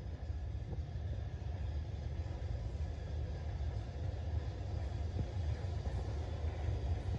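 Steam-hauled train rumbling steadily along the line: a low, even rumble with no distinct exhaust beats.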